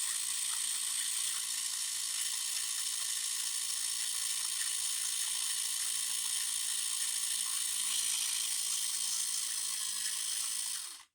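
Small electric motor of a homemade hand-held power drill running steadily: a high-pitched whir with a low hum underneath, stopping abruptly near the end.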